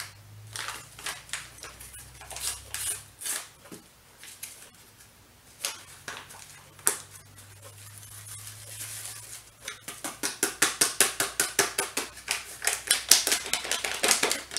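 A utensil clicking and scraping against a bowl while fajita seasoning mix is stirred into oil and water, with scattered clicks at first and then rapid, even clicks of about five or six a second from about two thirds of the way in.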